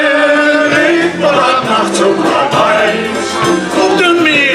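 Live music from a male shanty choir and its band, with an accordion among the instruments, playing held notes that move on every second or so.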